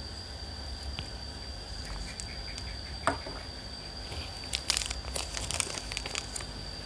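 Clear plastic bag crinkling and crackling in a run of small crisp crackles over about two seconds in the second half, after a single tap about three seconds in, over a faint steady high-pitched whine.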